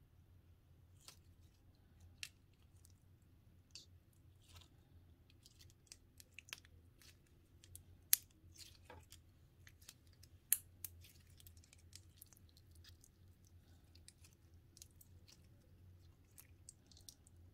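Clear blue slime being stretched, squeezed and folded by hand, giving scattered faint sticky clicks and small pops, with two louder pops about eight seconds in and again a couple of seconds later. A faint steady low hum sits underneath.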